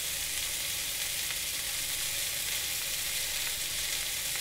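Beef smash-burger patty and halved burger buns sizzling steadily in a frying pan, the buns toasting in the meat's rendered fat.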